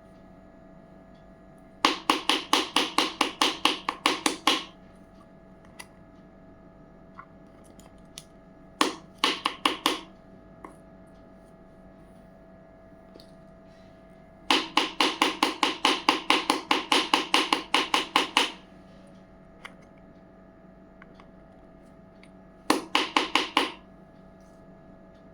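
Rapid sharp taps on a hard surface, about five a second, in four runs of one to four seconds each, the longest near the middle.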